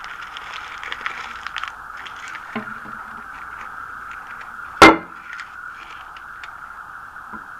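Crumpled paper crinkling in a hand, then, a little past halfway, one sharp clack as a plastic toilet lid is lifted and knocks back against the tank, over a steady hiss.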